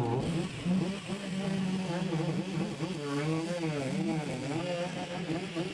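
An engine running steadily with a low hum, with people talking over it.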